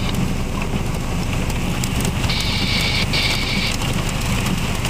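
Small hail and heavy rain pelting a car, heard from inside it: a steady heavy rush with scattered sharp ticks of hailstones hitting the body and windshield. A brighter hiss swells for a second or so midway.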